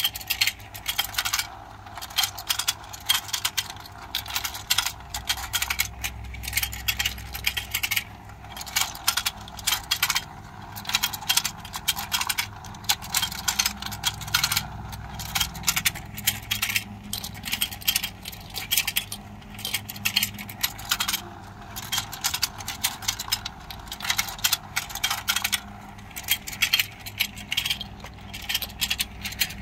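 Small plastic toy fish from a children's fishing game clicking and clattering as they are hooked, lifted and dropped into a plastic basket: many quick, irregular clicks in clusters.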